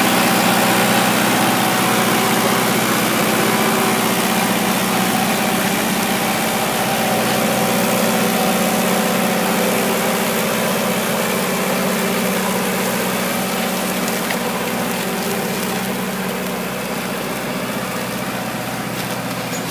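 Kubota L5018 tractor's diesel engine running steadily while it pulls a disc plough through sod, growing gradually fainter toward the end.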